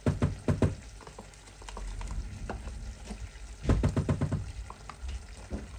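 Spoon stirring stroganoff in a pan on the stove, knocking and scraping against the pan in two bursts, one at the start and one about four seconds in.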